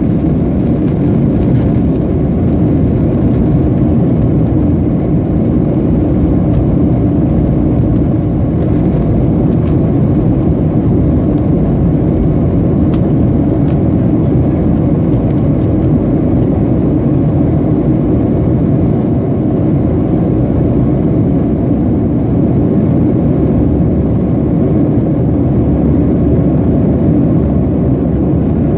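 Steady cabin noise of a Boeing 737-700 in the climb after takeoff, heard from a seat over the wing: the CFM56-7B turbofans' low, even rumble mixed with the rush of air over the fuselage.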